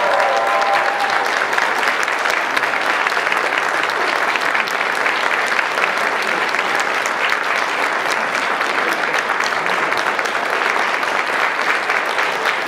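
Audience applauding, a dense patter of many hands clapping that keeps up steadily. The pop song playing before it fades out under the clapping in the first second or so.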